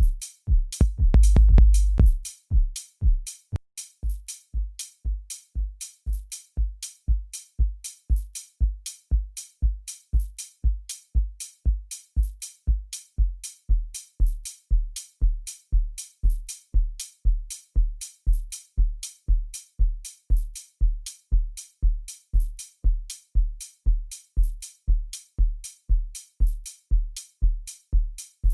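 Electronic kick drum looping four to the floor, about two hits a second: a deep house beat built from FL Studio stock sounds. A louder, longer low boom sounds about a second in.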